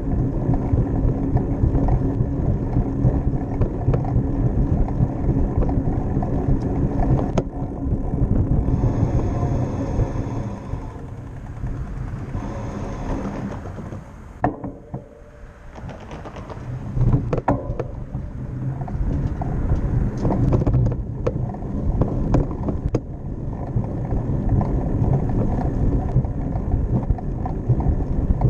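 Wind buffeting the microphone of a camera mounted on a moving bicycle: a steady low rumble that dies down for a couple of seconds about halfway, then builds back, with scattered clicks and rattles from the bike.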